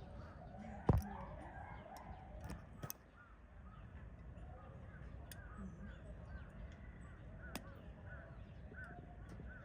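Background ambience of distant people talking and birds calling in short repeated chirps, with a sharp knock about a second in.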